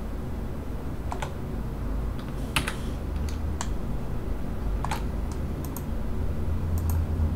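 Scattered clicks of a computer mouse and keyboard, some in quick pairs, the loudest about two and a half seconds in, over a steady low hum.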